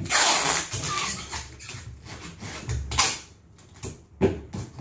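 Packing tape being pulled off the roll with a rasping screech and pressed onto a cardboard box: one long pull over the first second or so, a shorter one about three seconds in, and a sharp knock a little after four seconds.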